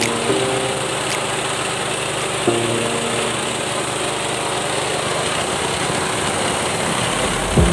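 Mini rice milling machine (rice huller) running steadily with an even mechanical whirr.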